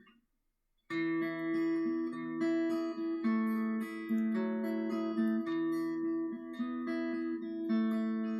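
Acoustic guitar strummed, starting suddenly about a second in and playing sustained chords as the introduction to a song.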